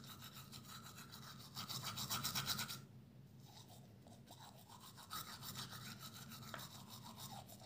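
Teeth being brushed with a toothbrush: fast, rhythmic scrubbing strokes that ease off about three seconds in and pick up again a couple of seconds later.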